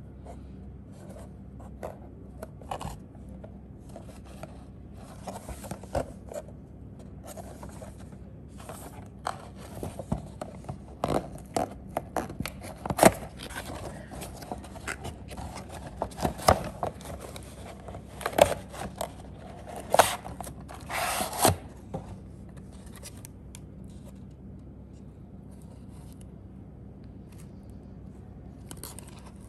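A die-cast toy car's cardboard box with a plastic window being opened by hand: card flaps and tray scraping, rubbing and snapping in an irregular run of scrapes and sharp clicks. It is busiest and loudest in the middle and dies away over the last several seconds.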